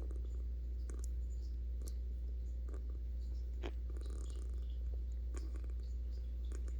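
A sleeping pet snoring softly: a steady low rumble with small scattered clicks.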